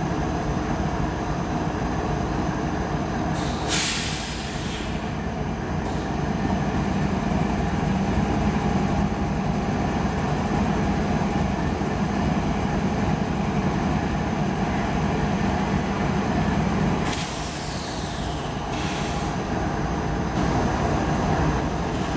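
Diesel freight locomotives running low and steady while barely moving. Two short, sharp hisses of air cut through, about 4 seconds in and again near 17 seconds.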